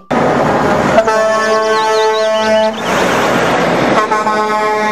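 Truck air horn sounding two long blasts over steady truck and road noise.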